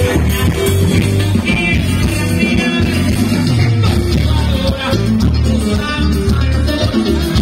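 Loud dance music with singing over a heavy, steady bass line.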